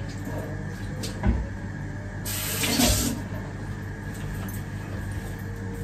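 Kitchen sink tap running briefly, a short rush of water about two seconds in, over a steady low hum, with a couple of light knocks about a second in.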